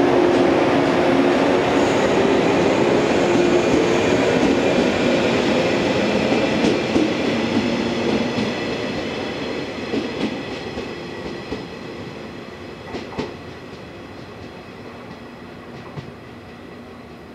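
Yellow JR West electric multiple unit, Okayama depot set B15, running on the line and moving away. Its steady motor and wheel noise is loud at first and fades throughout, with a clickety-clack of the wheels over the rail joints in the middle and later part.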